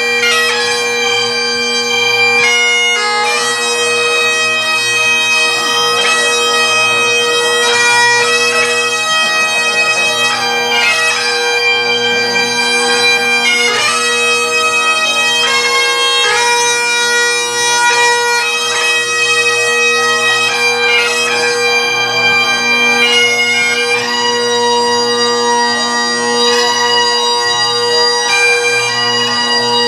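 Highland bagpipes playing a tune: a steady drone underneath with the chanter's melody moving above it.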